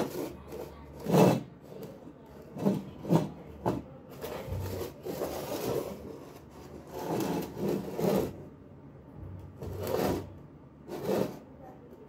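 Ferrite ring magnets from a microwave oven magnetron being set down, slid and knocked together on a workbench. There is a series of short clacks and scrapes about once a second, with a longer rubbing scrape around five seconds in.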